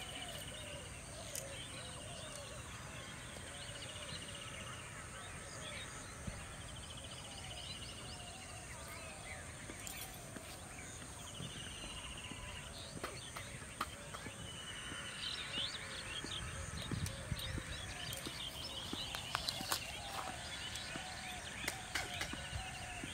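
Birds calling in open country: a short buzzy falling call repeats every two to three seconds, with busier chirping later on, over a steady high whine and scattered clicks.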